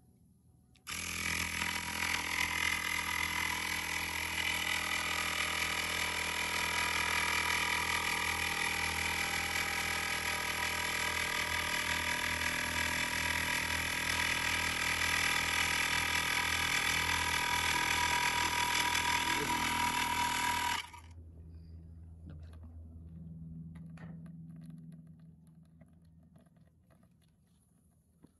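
Xiaomi Mijia portable electric air pump running with a steady motor whine, pressurising the moka pot to push water through the coffee grounds. It starts suddenly about a second in and cuts off suddenly about two-thirds of the way through.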